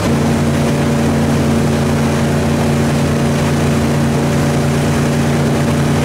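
Wakesurf boat's engine running steadily under way, a constant drone heard from aboard, over the rushing water of the wake.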